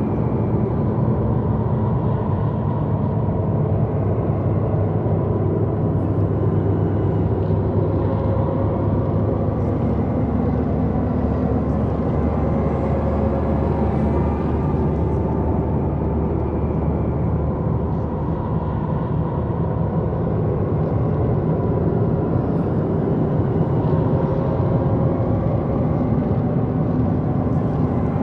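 Dark, eerie ambient drone: a steady low rumble layered with several sustained tones, unchanging in loudness throughout.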